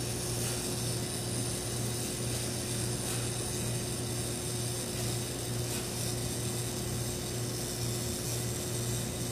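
3Doodler 3D printing pen's geared drive running steadily as it extrudes green ABS plastic filament: a continuous low mechanical hum with a steady higher tone above it.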